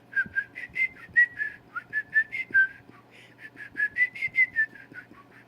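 A woman whistling a slow tune through her lips: a string of short, breathy notes that wander up and down in pitch, with air noise on each note. The whistle is weak and uneven; she says she can't whistle.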